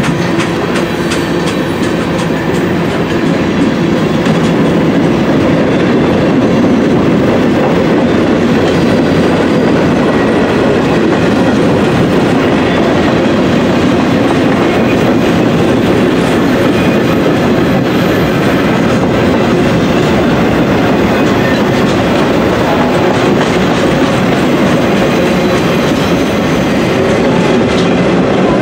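Cars of a Norfolk Southern mixed freight train rolling past close by: a steady rumble of steel wheels on the rails, with quick wheel clicks over the rail joints in the first few seconds.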